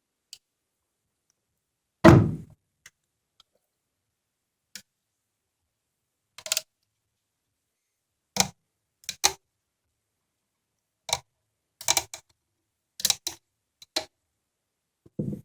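Short knocks and clicks of small metal parts and tools being handled while washers are taken off the shaft of a dismantled heater fan motor, with one heavier thunk about two seconds in and a scattered run of sharper taps from about six seconds on.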